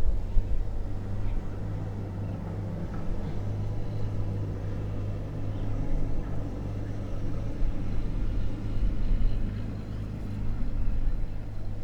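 Steady low rumble with a hum in it, swelling and fading, with faint bird chirps above it.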